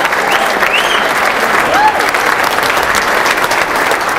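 Audience applauding loudly, with a few voices calling out over it.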